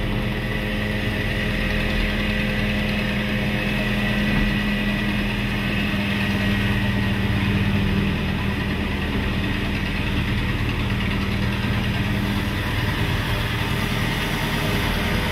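Ruston diesel shunter's engine running steadily while moving the train. Its hum drops away near the end.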